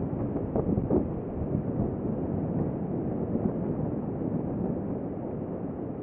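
Wind buffeting the microphone: a low, unsteady rumble and hiss that eases slowly.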